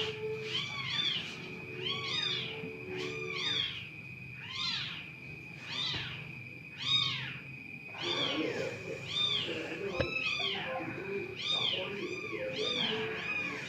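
Repeated meowing: short calls that rise and fall in pitch, about one and a half a second, over a faint steady high whine.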